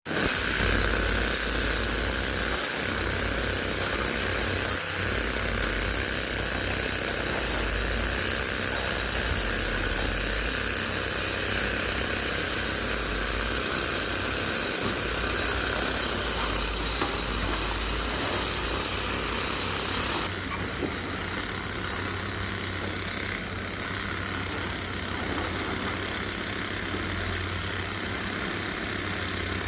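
Heavy diesel machinery running steadily with a deep engine hum, and a few scattered knocks of stone being loaded.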